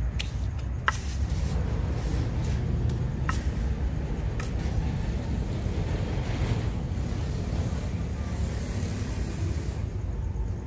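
A steady low rumble underlies a few sharp clicks in the first half as a steel trowel taps and smooths wet cement mortar, then a soft rustling scrape toward the end as a welded wire-mesh cylinder is set onto the mortar.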